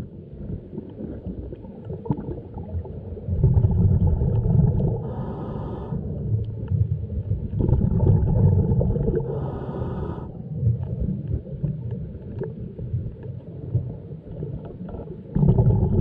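Scuba diver breathing through a regulator underwater: each breath is a low bubbling rumble followed by a short whistling hiss, twice, with a third breath starting near the end. Faint clicks over a steady low underwater rumble lie between the breaths.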